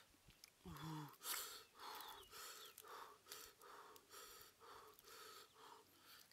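A man breathing quickly and rhythmically, about two breaths a second, after a short voiced grunt about a second in.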